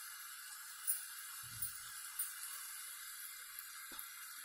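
Sliced ivy gourd frying in a pan with a faint, steady sizzle, with a few light clicks and a soft knock about one and a half seconds in.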